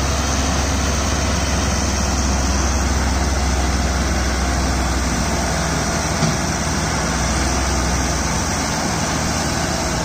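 Ashok Leyland tipper lorry's diesel engine running steadily while its hydraulic hoist raises the loaded tipper body to dump soil. The low rumble eases near the end.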